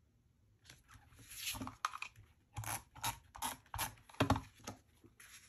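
Creative Memories tape runner laying adhesive onto the corners of a photo and a paper mat: a rapid series of short scratchy strokes, about a dozen.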